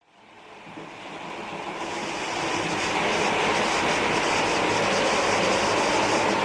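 OO gauge model train running along the track, a steady rumble of motor and wheels with light irregular clicking, growing louder over the first few seconds and then holding steady.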